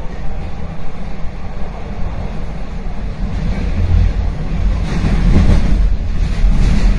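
Subway train in motion: a steady low rumble with rattling noise of the car running on the tracks, growing louder about halfway through.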